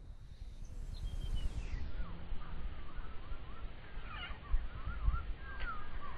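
Birds calling: a run of short whistled notes that rise and fall, starting about two seconds in, over a steady low rumble of wind on the microphone.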